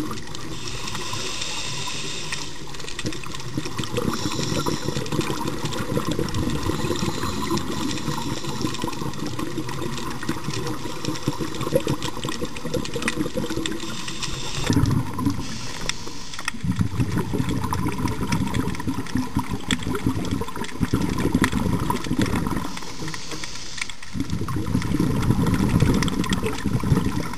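Scuba diver breathing through a regulator underwater: a hiss on each inhalation and a low rush of bubbles on each exhalation, several breaths in turn. Throughout there is a steady crackle of clicks and rattles from nearby lobsters.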